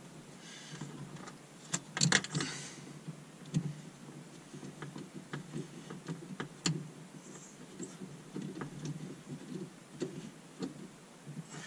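A screwdriver tightening the clamps on the fuel feed and return lines at the fuel pump's top plate: scattered light metallic clicks and ticks, with a louder burst of rattling about two seconds in.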